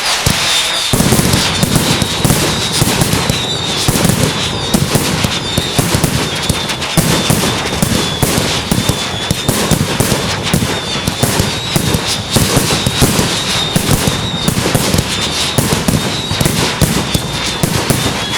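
Fireworks display in a dense, almost continuous barrage of bangs and crackling, with a high whistling note coming and going over it.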